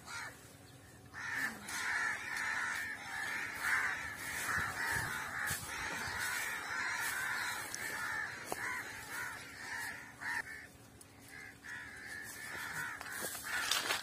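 A dense chorus of harsh bird calls starts about a second in, with a short break near ten and a half seconds. It plays over the crackle of dry twigs and branches being pushed aside in brush.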